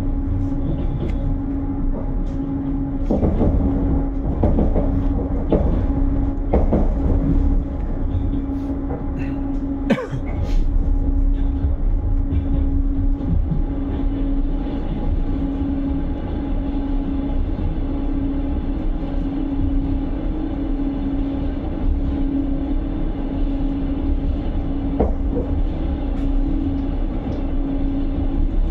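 Passenger train running, heard from inside the carriage: a steady low rumble with a constant hum, and scattered clicks and knocks from the wheels and running gear, the sharpest about ten seconds in.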